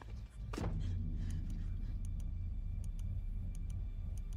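Sound effects from a radio public-service spot: about half a second in, a sudden sound drops steeply in pitch into a steady low rumble, with scattered faint ticks over it.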